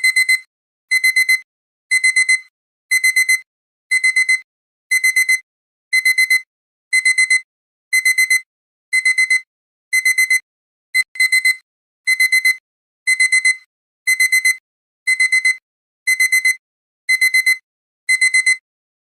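Electronic timer alarm going off, signalling that the countdown has run out: a high-pitched burst of four quick beeps, repeated about once a second.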